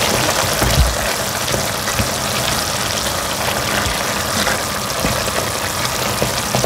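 Beef cubes in water simmering in a pan, a steady crackling bubble over a low rumble, with one soft knock about a second in.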